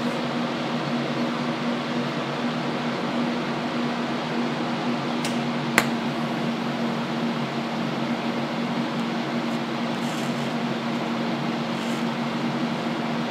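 Steady fan-like hum of a TIG welding setup running. About halfway through, a single sharp crack as the arc strikes for a tack weld, then the arc burns without much change in the sound.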